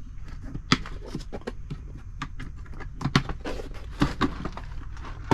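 Scattered clicks and knocks of plastic parts organizer cases being handled, with louder knocks about a second in and around three and four seconds in.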